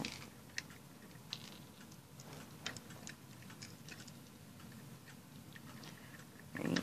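Faint, irregular clicks and small rattles of Lego plastic pieces as a chain is fitted back onto the log load of a Lego train car. A short vocal sound near the end.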